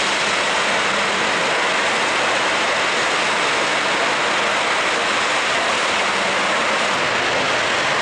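Blowing-out oil or gas well at a drilling rig: a steady, unbroken rush of gas jetting out under high pressure.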